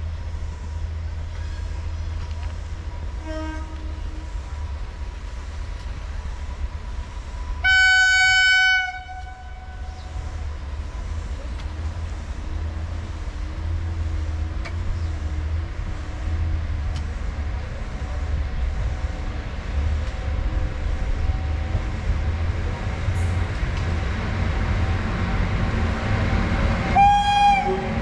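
Indian Railways WAG-9 electric locomotive approaching with a freight train: a steady low rumble that grows louder, a loud single-note horn blast lasting about a second and a half, and a shorter horn blast near the end. A couple of faint short toots come before the main blast.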